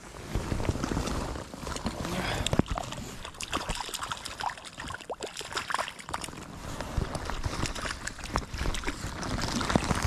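Irregular water splashing and sloshing from a hooked trout thrashing at the surface while it is played on light tackle, with many sharp little splashes and clicks.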